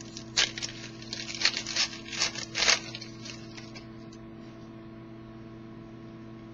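Trading cards being handled and slid against each other: a quick series of short rustling swishes over the first three seconds, then only a steady low electrical hum.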